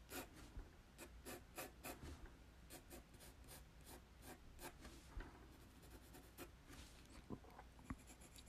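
Faint pencil strokes scratching on paper: a run of short quick strokes, about three a second, that thins to a few scattered strokes after about five seconds.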